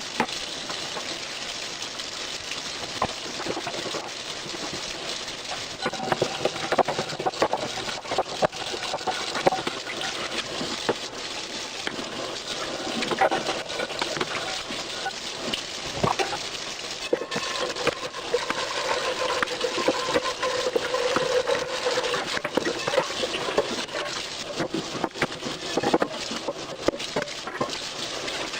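Kitchen tap water running with dishes clinking and knocking, some with short ringing tones.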